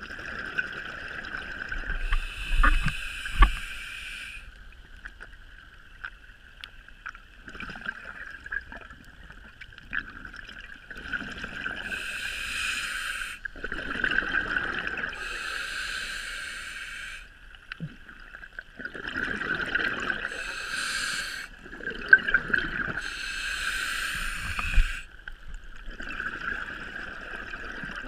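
Scuba diver breathing through a regulator underwater: bursts of exhaled bubbles gurgling past every few seconds, over a steady high whine.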